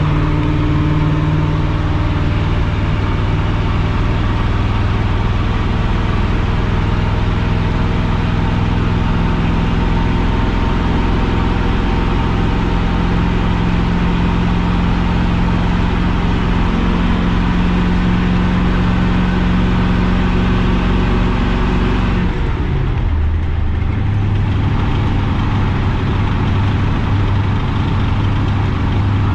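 Chevrolet K30's 6.0 Vortec V8 running steadily under load while towing a heavy trailer. About three quarters of the way through, the engine note drops sharply, as the revs fall on a gear change, then settles at a lower, steady pitch. The exhaust still has leaks in it.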